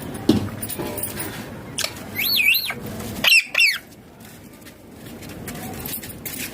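Indian ringneck parakeet calling: a wavering, warbling call about two seconds in, then two quick shrill calls right after. A short knock comes near the start.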